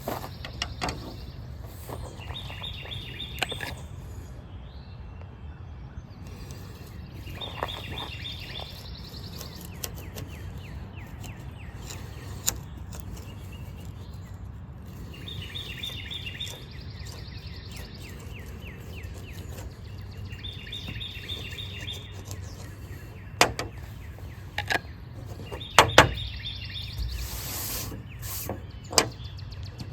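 A bird repeating a short, rapid trill of high notes every five seconds or so, over a steady low background rumble. A few sharp knocks come near the end.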